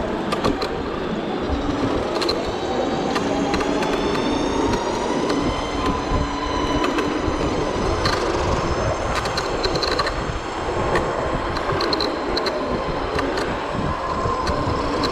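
Zero 10x electric scooter's hub motors whining under way, the whine rising slowly in pitch as speed builds and then holding, over steady wind and road rumble with scattered sharp clicks and rattles.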